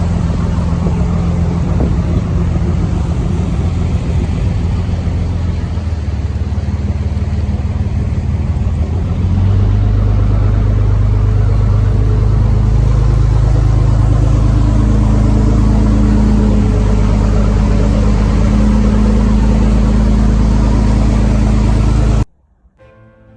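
A vehicle engine running steadily, settling into a deeper, louder hum about nine seconds in. It cuts off suddenly near the end, leaving faint music.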